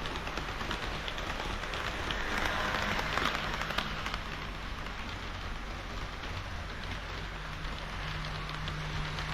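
HO-scale model KiHa 40/KiHa 58 diesel railcar train running on its track: a steady hiss of wheels on rail with faint clicks from the rail joints, louder about two to three seconds in. Under it runs a low motor hum that grows stronger near the end.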